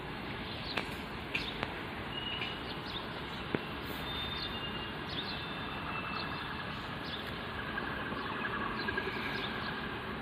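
Steady outdoor background noise with a few sharp clicks early on and several short, high chirps, mostly in the middle.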